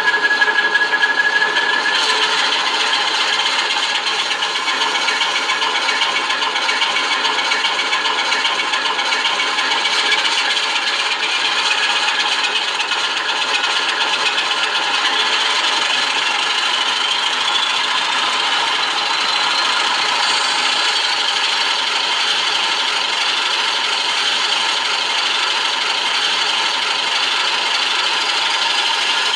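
Sampled Alco 539T six-cylinder diesel switcher engine from an ESU LokSound XL sound decoder, played through a small loudspeaker, running steadily with a rough rattle after the throttle is turned back toward idle. A thin tone fades in the first two seconds, and a faint whine rises in pitch in the middle.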